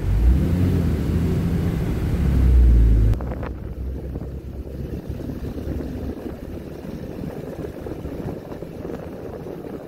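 Dodge Ram pickup on the move, heard from inside the cab: a low engine and road rumble that drops suddenly about three seconds in to a lighter, steady rush of wind and tyre noise.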